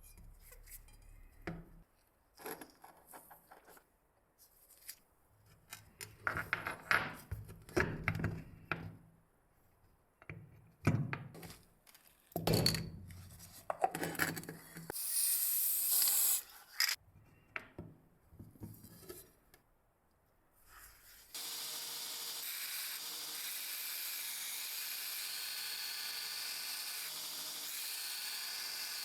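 Irregular hand scraping and rubbing strokes on rusty metal, with a short high hiss partway through. About two-thirds of the way in, a steady machine-like whir starts suddenly and keeps going.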